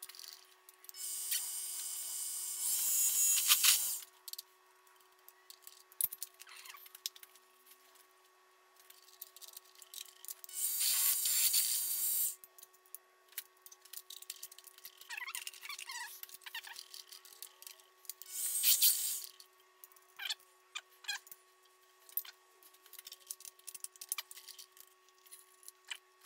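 Bench mill-drill drilling holes in a rectangular steel tube: three short spells of cutting noise, the first and longest about a second in, the next around ten seconds in and a brief one near twenty seconds. Between them, clicks and knocks of bit changes and vise handling over a faint steady hum.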